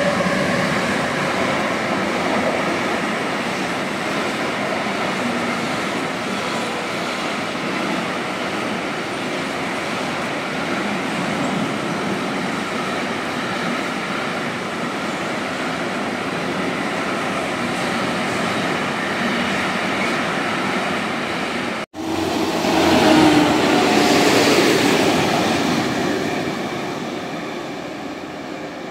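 Intermodal freight train of truck semitrailers on rail wagons rolling steadily past, a continuous rumble of wheels on rail with faint steady tones over it. About three-quarters of the way in the sound cuts to a yellow track-maintenance machine coming along the track with its engine running, a louder hum that peaks shortly after the cut and then fades.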